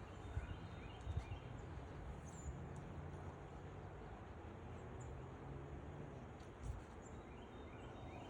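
Faint outdoor ambience: a steady low rumble, with a few small knocks in the first second or so and again near the end, and a few faint high chirps, typical of small birds.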